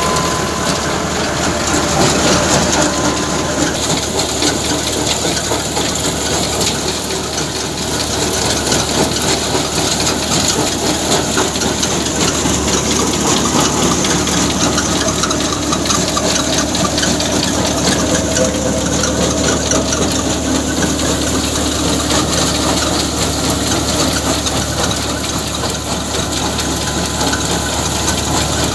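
Stationary thresher running, driven by a Massey Ferguson 385 tractor through its PTO shaft: the threshing drum, pulleys and belts run steadily over the tractor's engine working under load.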